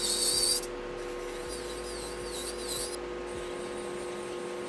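Electric nail drill with a cuticle bit grinding along the nail fold, pushing back and lifting the cuticle: a hissing rasp in spells of one to three seconds, the first the loudest, over a steady motor hum.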